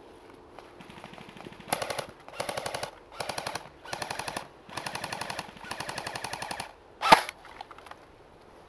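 An AK-style airsoft rifle firing six rapid full-auto bursts, each a fast rattle of shots lasting half a second to a second, with short gaps between them. A single sharp crack, louder than the bursts, follows about seven seconds in.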